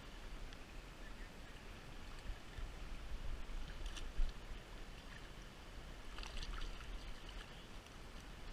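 Shallow stream running steadily over stones, with a low rumble and a few short splashes about four and six seconds in as a hooked fish is drawn into a landing net.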